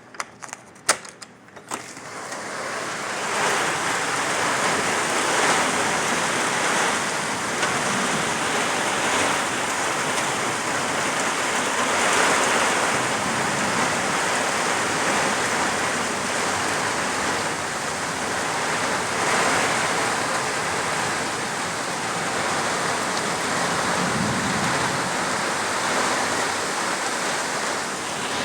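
Heavy rain pouring steadily, a dense even hiss, coming in after a few sharp clicks in the first two seconds.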